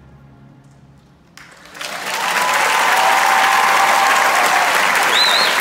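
The final held orchestral chord of the song fades out, then about a second and a half in a theatre audience breaks into loud applause with cheering, and a single whistle rises and falls near the end.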